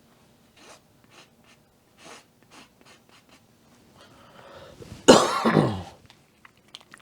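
A person coughs once, loudly, about five seconds in. Before it there are a few faint, short scratchy strokes of a painting tool on canvas.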